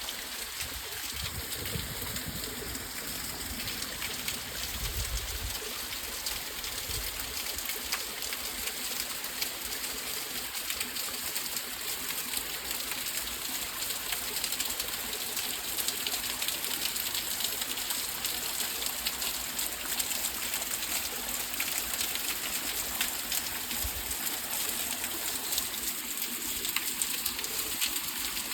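Waterfall pouring into its plunge pool, a steady, unbroken rush of falling water.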